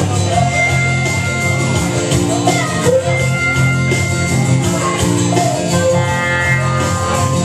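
Instrumental music with a steady beat and held notes, without singing.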